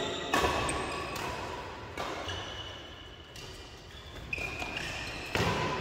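Badminton rally: rackets hitting the shuttlecock with sharp cracks every second or two, the loudest about a third of a second in and just before the end, with short squeaks of shoes on the court mat between the hits.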